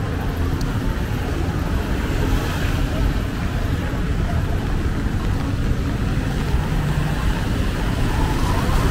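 Street traffic on a wet road: a steady low rumble of engines and tyres on wet asphalt, with auto-rickshaws passing close near the end.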